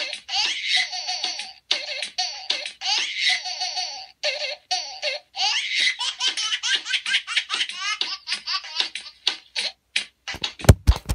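High-pitched laughing in rapid, choppy bursts, a giggling 'hehehee'. Near the end a few loud sharp thumps cut in, the loudest sounds here.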